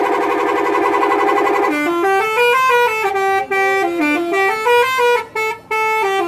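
Indonesian bus 'telolet' musical horn. It first holds a pulsing chord of several notes, then, from about two seconds in, plays a melody of single notes stepping up and down, with a few brief breaks.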